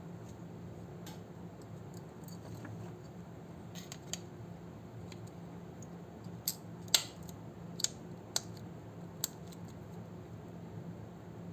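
Scattered small sharp clicks and taps from a phone and its parts being handled and connected on a repair bench, about six of them, the loudest about seven seconds in, over a steady low hum.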